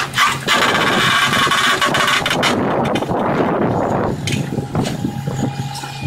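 Large excavator's diesel engine running with a steady hum, and a loud rushing hiss for about two seconds near the start as the machine works against the marble block.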